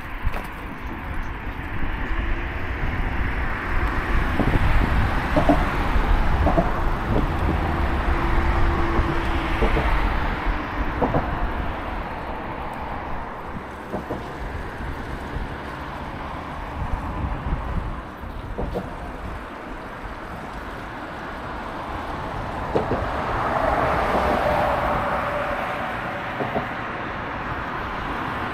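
Road traffic and wind rumbling on the microphone while riding an electric bike, with a few light knocks. A vehicle swells past about three quarters of the way through.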